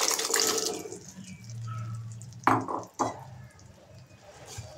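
Boiled chickpeas and their cooking water poured from a glass bowl into a pan of thick masala, splashing and fading out after about a second. Two short sharp knocks follow about half a second apart.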